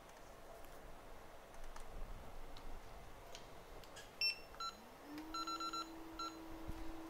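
Short electronic beeps from a rework station's control buttons, including a quick run of four, as a low hum rises in pitch and then holds steady: the hot-air blower spinning up to lift the EMI shield. A few light clicks of tools being handled come before.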